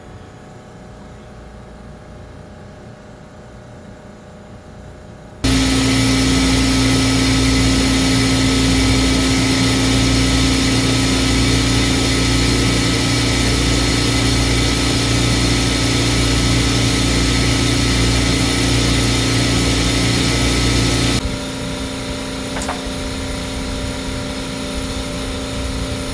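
Steady machinery drone from the equipment bay of a truck-mounted laser weapon, with a constant hum over a rushing noise. It starts suddenly about five seconds in after a quieter hum, drops to a lower hum about twenty seconds later, and one click follows.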